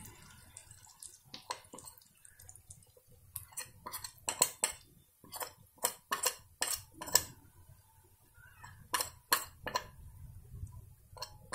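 Irregular sharp clinks and knocks of a utensil against the rim of an aluminium pressure cooker as dry spice powders are tipped in, about a dozen in all, most of them bunched between three and seven seconds in.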